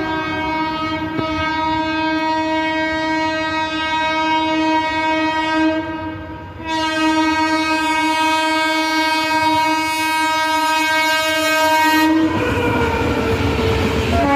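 Indian Railways express locomotive sounding a long, steady horn as it approaches, broken once briefly about six seconds in. The horn stops near the end, and the loud rush of the coaches passing close by on the rails takes over.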